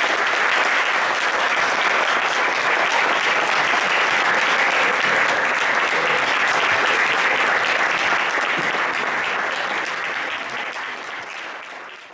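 Theatre audience applauding steadily for the cast's curtain call, dying away over the last few seconds.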